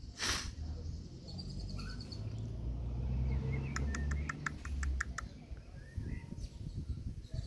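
A rapid run of short, sharp chirps, about six a second for a second and a half in the middle, with a fainter quick trill about a second in, over a low background rumble. A brief rustle comes right at the start.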